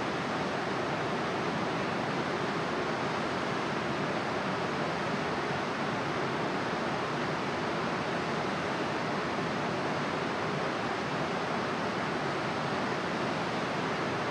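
Steady, unbroken rushing of running water, with no other sound standing out.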